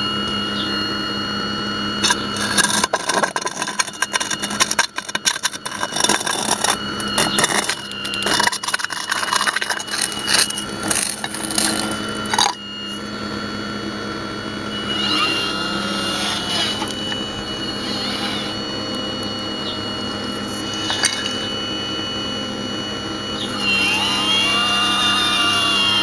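Hydraulic pump of a radio-controlled Hitachi 870 model excavator running with a steady whine, its pitch sweeping up and down as the boom and bucket valves are worked, twice in the second half. From about 2 to 12 seconds in, many sharp clacks and scrapes of the bucket against broken concrete.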